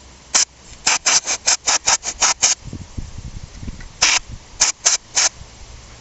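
A quick run of about nine short, sharp hissing strokes, about four a second, then after a pause four more, from cleaning at the exposed shifter mechanism of a Kawasaki KDX200 two-stroke engine. The mechanism is being cleared of debris that was jamming the shifter pawl.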